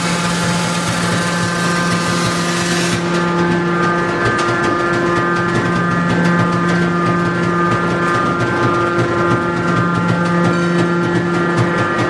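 Hydraulic power unit of a scrap-metal baling press running with a steady, loud hum and whine as the hydraulic cylinders lift the press's heavy lid open.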